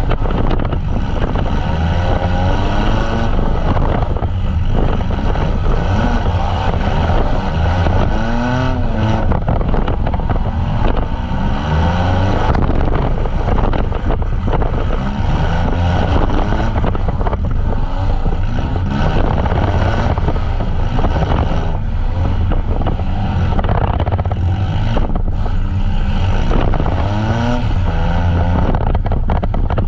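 Several demolition derby vans' engines revving hard, their pitch rising and falling continually, with scattered sharp knocks of impacts among them.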